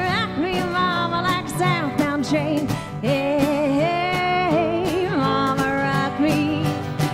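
Live country-style band music: a woman singing a wavering melody over strummed acoustic guitar, piano and steady light percussion.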